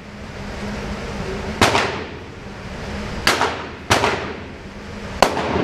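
Four gunshots on an indoor firing range, irregularly spaced, each with a short echoing tail. A steady low hum runs underneath.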